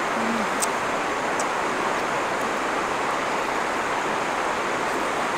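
A steady rushing hiss with a few faint ticks.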